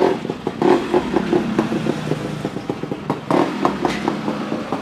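Motorcycle engine running, with a quick, irregular run of clicks and knocks and a couple of louder swells.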